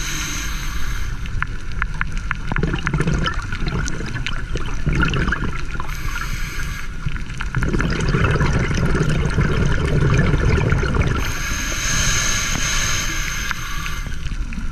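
A scuba diver breathing through a regulator, heard underwater. Each inhale is a high hiss and each exhale is a low gurgling rush of bubbles, alternating roughly every few seconds: about three inhales with two bubbling exhalations between them.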